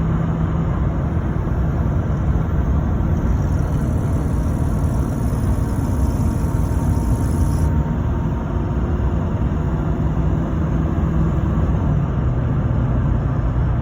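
LBZ Duramax 6.6-litre V8 turbodiesel running steadily with a low rumble and its turbocharger whining. A faint high-pitched whine shows from about three seconds in and cuts off suddenly near eight seconds.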